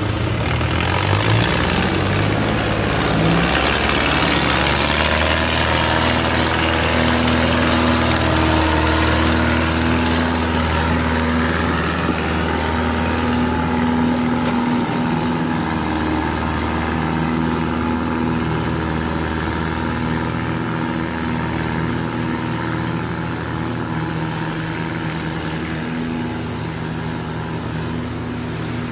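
Farm tractors' diesel engines running under load, pulling a loaded trailer up a steep rocky track. The engine pitch rises in the first couple of seconds, then holds steady.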